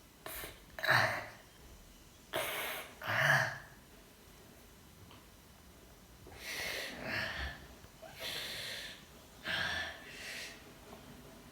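A sleeping baby snoring: a series of noisy breaths in and out, with a quiet pause of a couple of seconds in the middle.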